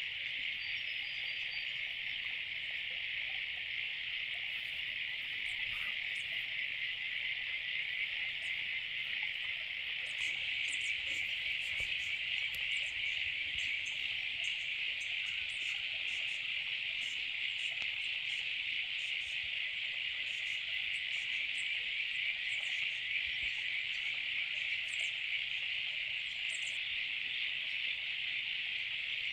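Steady insect chorus, a dense high-pitched trill that never lets up, with scattered short, very high chirps joining it about a third of the way through.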